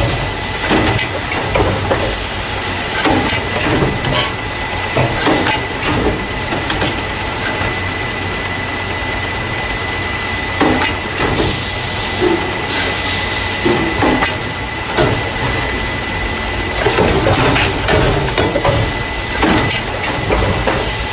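Carton caser machine running, the machine that packs paper juice and milk cartons into plastic crates: a steady hum with a thin high whine, irregular clacks and knocks from the mechanism, and a spell of hissing about halfway through.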